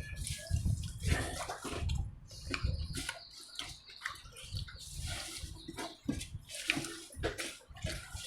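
Close-up eating sounds: wet chewing and lip smacking, with irregular short clicks and smacks.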